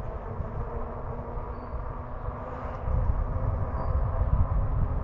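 Riding noise on a moving electric bike: a fluctuating low rumble of wind buffeting the microphone, getting louder about three seconds in, with a faint steady hum over it.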